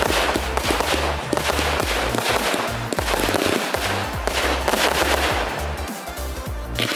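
Fireworks going off in a rapid string of bangs and crackles, thinning out a little near the end, with music playing underneath.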